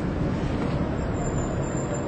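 Steady low rumbling background noise with no distinct events, and a faint high-pitched whine from about halfway through.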